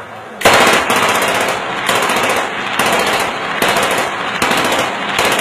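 AK-47-type assault rifle fired into the air on full automatic, a long stream of rapid shots starting about half a second in.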